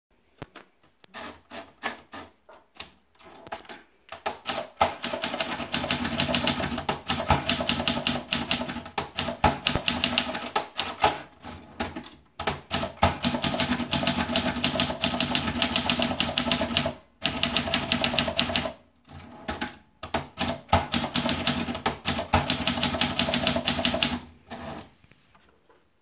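Triumph Tippa S manual portable typewriter: a few scattered clicks as the paper is fed in, then fast typing, with the keys and typebars clacking in quick runs broken by a few short pauses. The typing stops about a second and a half before the end.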